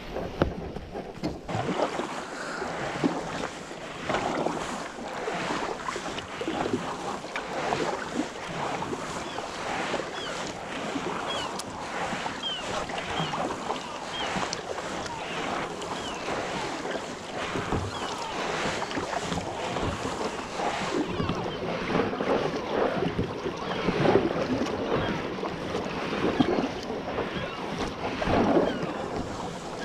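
Double-bladed kayak paddle dipping into calm water stroke after stroke, with splashing and drips from the blades.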